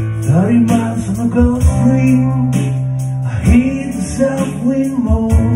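Man singing a country song to strummed acoustic guitar, over sustained keyboard chords, in two long sung phrases.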